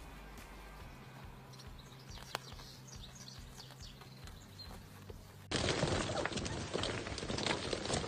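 Faint outdoor background with a few light taps. About five and a half seconds in, it switches abruptly to a loud, continuous rattle and crinkle of plastic ball-pit balls being churned as puppies wade through them in an inflatable paddling pool.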